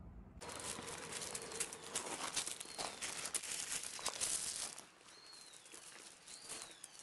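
Loose gravel crunching and skittering under two puppies' paws as they scuffle, with a few short high squeaks that fall in pitch. The crunching starts suddenly about half a second in and eases off after about five seconds.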